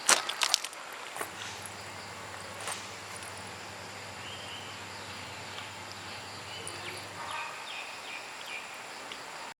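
Background ambience with a steady low hum and hiss; a quick run of sharp clicks or knocks right at the start, and a few faint short chirping calls about halfway through.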